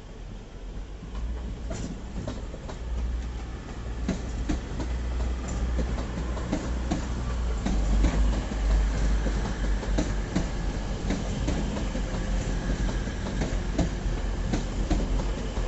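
A train running along the track, its wheels clicking over rail joints and points above a low rumble. It grows louder over the first half, then holds steady.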